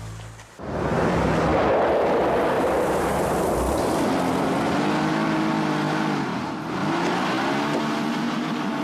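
A motor vehicle engine running loudly, its pitch rising and falling as it revs, starting about half a second in.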